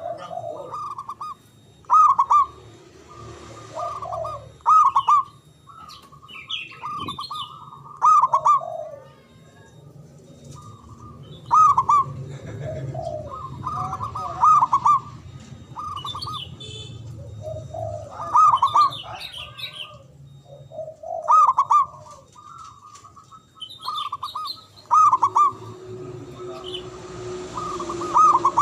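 Zebra dove (perkutut) singing its cooing song in loud phrases about every two to three seconds, with other small birds chirping more faintly between them.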